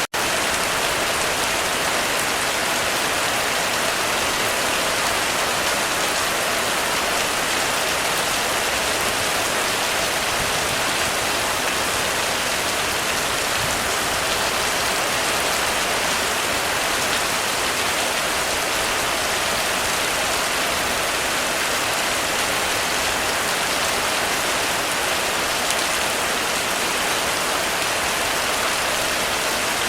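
Heavy rain falling steadily on a roof, a dense even hiss without thunder, with a split-second dropout right at the start.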